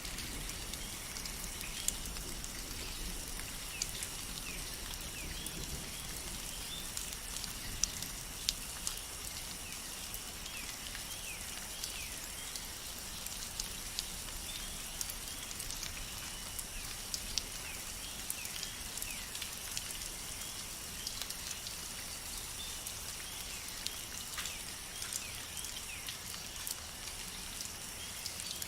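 Steady rain in a rain forest: an even hiss with individual drops ticking sharply, close by, every second or so. Short high chirping calls come and go throughout.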